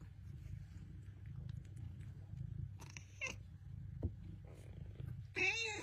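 Bengal cats purring steadily, with a short high mew about three seconds in and a louder meow that rises and falls near the end.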